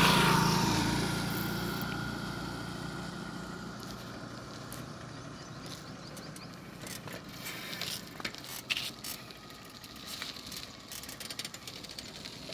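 A motorcycle engine passes close by at the start and fades steadily as the bike rides away down the dirt road. Scattered light clicks and crunches follow in the second half.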